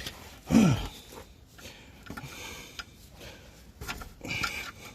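A man's short, falling 'hmm' about half a second in, then faint clicks and rustling as he handles the suspension parts.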